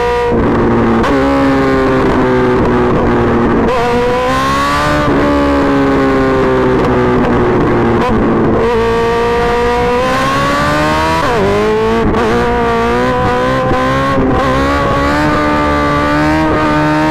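Engine running hard and loud. Its pitch climbs and drops several times, with sudden breaks at about 1, 4, 8½ and 11½ seconds, each followed by a new climb.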